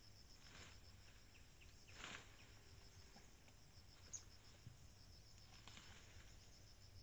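Faint, steady high-pitched insect trill, finely pulsed, with a few soft brief rustles, the clearest about two seconds in.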